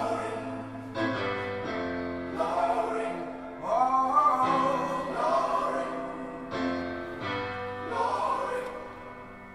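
Recorded gospel-style song: a male lead voice and a choir singing long held notes.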